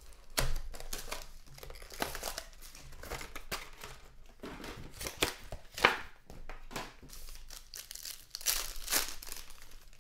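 Hands handling a cardboard trading-card box and crinkling and tearing open sports-card pack wrappers: rustling and crinkling with scattered sharp snaps, the loudest a little before six seconds in and another bunch near the end.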